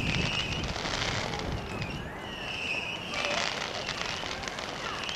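Outdoor crowd ambience: indistinct voices of people nearby over a steady background hum, with scattered crackles and faint high squeaks or chirps.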